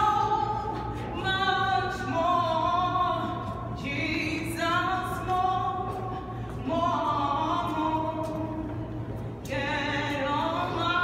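A subway busker singing solo with no instruments, in long, slow phrases of held notes that waver in pitch. A steady low hum runs underneath.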